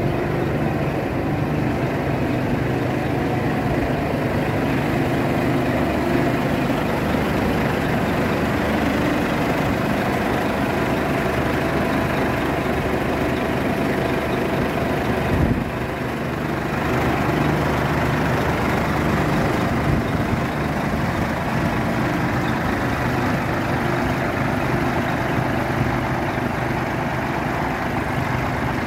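Scania R480 8x4 tipper truck's diesel engine idling steadily, with one brief knock about halfway through.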